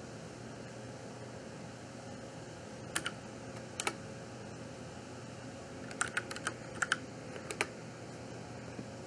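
Computer keyboard keystrokes: two single key presses about three and four seconds in, then a quick run of about six keystrokes a little past halfway, over a faint steady hum.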